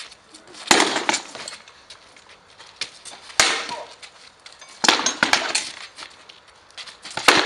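Swords striking wooden shields in a sparring bout: a series of sharp clashing blows, four heavy ones a second or two apart with lighter knocks in between.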